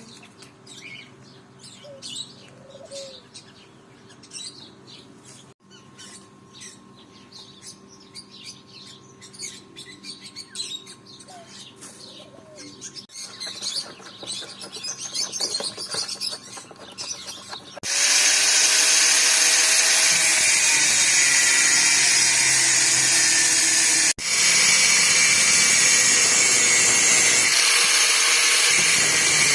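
Small birds chirping for the first two-thirds. Then a loud, steady power tool starts abruptly and runs on, with a brief cut partway through.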